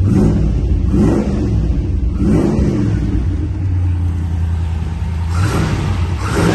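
V8 engine of a 1981 Triumph TR7 running at idle just after starting, with a few brief swells in its note.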